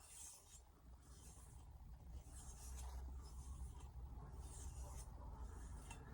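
Faint swishing strokes of a carbon-steel knife blade drawn along a strop, about six in a row at roughly one a second, to pull the remaining burr off the edge.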